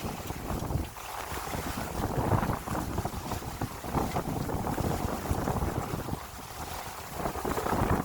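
Gusty wind buffeting the microphone aboard a small sailing yacht under way, with the wash of water alongside.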